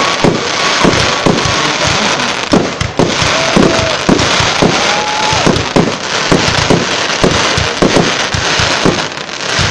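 Professional fireworks display: a rapid, continuous barrage of bangs, several a second at times, with short whistles gliding in pitch and a steady crackling hiss underneath.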